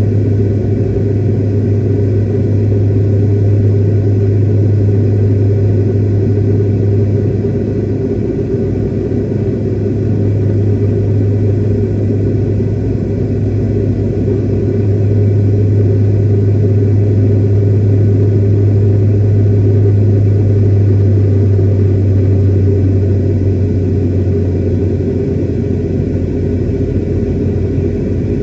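Airliner cabin noise: a steady, loud low drone of the jet engines and airflow, with a deep hum. It swells slightly partway through and eases a little near the end.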